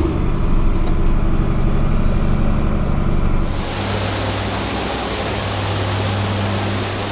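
Combine harvester running. About three and a half seconds in the sound shifts suddenly to a steadier hum with a loud hiss over it.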